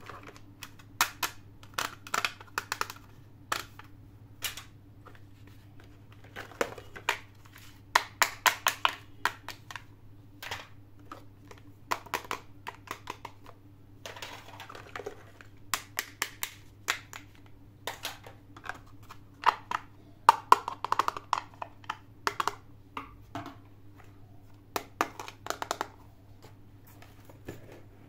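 Small plastic miniature toys being unboxed and handled: irregular light clicks and taps as pieces are picked up, opened and set down, with a brief rustle of packaging about halfway through. A faint steady hum runs underneath.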